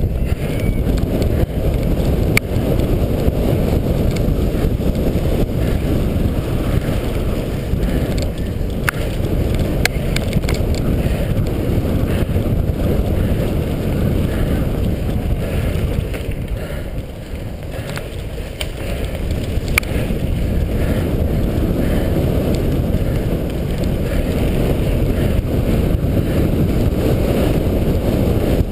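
Wind buffeting the microphone of a camera riding on a cyclocross bike, over the low rumble and rattle of the bike running fast on grass and dirt, with scattered sharp clicks. The rumble eases briefly a little past the middle.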